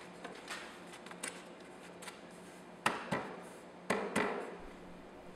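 Wooden knocks and taps from the parts of a mortise-and-tenon frame-and-panel door as the top rail is set down onto the stiles' tenons: a few light taps, then sharper knocks about three and four seconds in.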